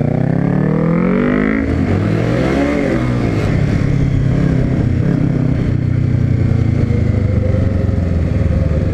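Honda CB300 single-cylinder motorcycle engine accelerating, its pitch rising, dropping sharply at a gear change under two seconds in and rising again, then running at a steadier, wavering pitch.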